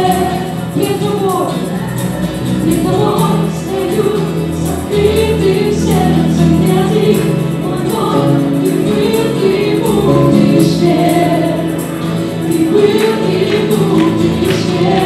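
A live worship band playing: several men and women singing together into microphones over acoustic guitar, keyboard and electric bass.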